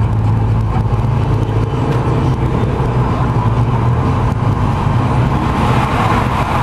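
Car on the move: steady engine hum and road noise, swelling slightly near the end.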